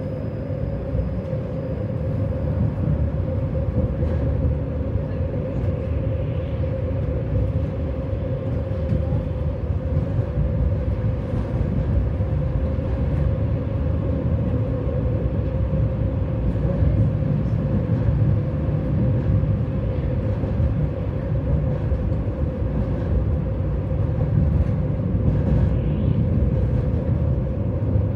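Tram running along the line, heard from inside the passenger car: a steady low rumble of wheels on rails with a constant hum held at one pitch, growing slightly louder over the first couple of seconds.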